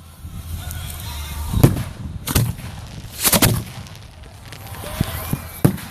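Fireworks going off in a ragged series of sharp bangs: a loud one about a second and a half in, another just after two seconds, a close double bang a little after three seconds, and smaller pops near the end, over a low rumble.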